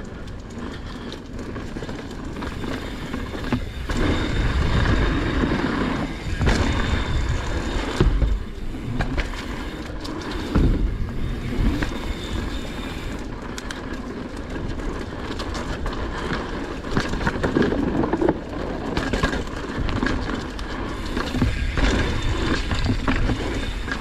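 Mountain bike riding down a dirt trail: steady rolling noise of the tyres over dirt and stones, broken by several louder jolts from bumps.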